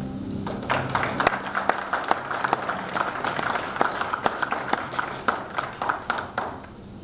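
Congregation applauding: a dense patter of many handclaps that starts about half a second in, as the last sung and played notes fade, and dies away near the end.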